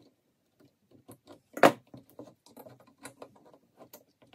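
Small clicks and rattles of plastic and metal as the replacement trigger switch and its wire connectors are handled and fitted into the opened housing of a Makita cordless drill, with one sharper, louder click about one and a half seconds in.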